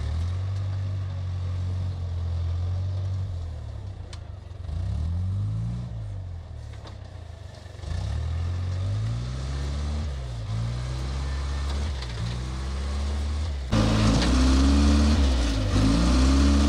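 Diesel engine of a wheel loader running and revving up and down again and again as it works. Near the end it suddenly gets louder and closer.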